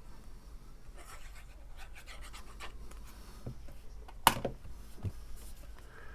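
Cardstock pieces being handled and pressed together on a work surface: soft rustling and small clicks, with one sharp tap about four seconds in and a lighter knock just after.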